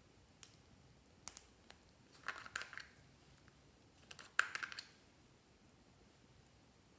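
Small plastic pot with two compartments being handled and its caps taken off: a few light plastic clicks, then two short clusters of clicking and fumbling, the sharpest click about four and a half seconds in.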